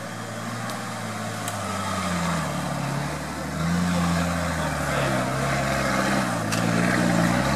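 White Nissan Patrol 4x4's engine working up a rutted dirt climb, its revs rising and falling over and over as the driver feeds throttle, growing louder about three and a half seconds in as the truck comes up the slope.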